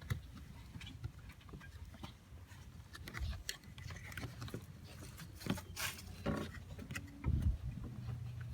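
Faint scattered clicks, taps and rustling as hands work a plastic clamp onto the door handle's rod inside a car door panel, with a short low sound about seven seconds in.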